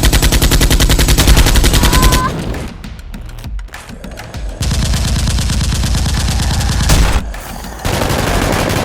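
Machine-gun fire sound effects: rapid automatic shots in long bursts of about two to three seconds, with short pauses between them.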